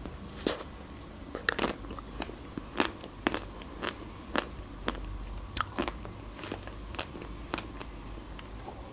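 Close-up biting and chewing of a chocolate-coated Magnum ice cream bar: the hard chocolate shell cracks and crunches in a string of sharp, irregular crackles, with wet mouth sounds between.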